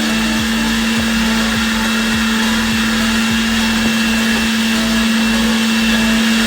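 Electric kitchen blender running steadily at full speed, a constant motor hum over the whir of the jar.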